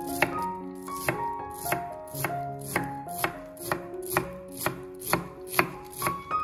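Steel cleaver chopping parsley on a wooden cutting board: even knocks of the blade, about two a second.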